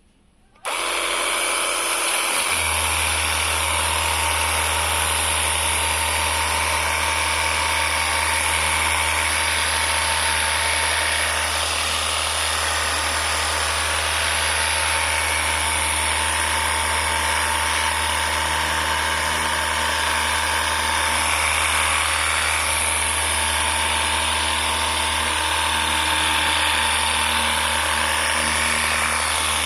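Portable pressure washer running and spraying: a steady hiss of the water jet over the even hum of its motor and pump. It starts about half a second in, and the low hum joins about two seconds later, then both hold steady.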